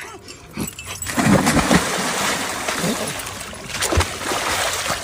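Close-up eating of a chicken leg piece: wet chewing, smacking and tearing of meat, with many short clicks throughout.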